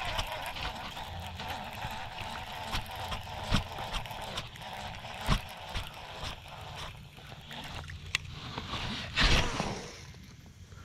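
Water splashing and gurgling around a fishing kayak, with a few sharp knocks. The loudest knock comes about nine seconds in.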